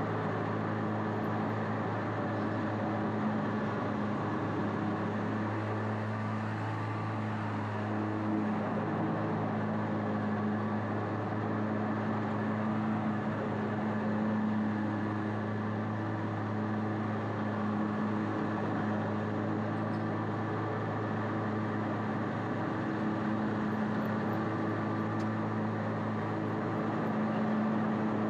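Bad Boy ZT Elite zero-turn mower's engine running steadily under mowing load, a constant drone.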